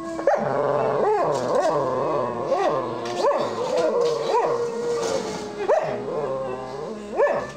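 Dog howling along in a series of short rising-and-falling yowls, with one longer held note near the middle.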